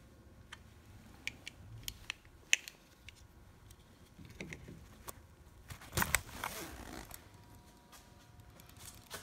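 A few sharp clicks of a screwdriver working at a Land Rover LR3's plastic-and-metal bonnet latch, the loudest about two and a half seconds in, then a brief clatter and rustle of handling about six seconds in.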